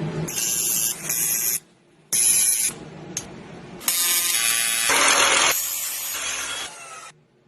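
Car turbo whistle sounds, a hissing, buzzing whistle in several bursts that cut off suddenly: two short ones, one near the middle, and a longer one that fades out near the end.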